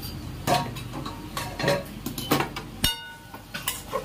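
Kitchen utensils and dishes clinking and knocking against one another, about half a dozen separate knocks. One sharp metallic clink about three seconds in rings briefly.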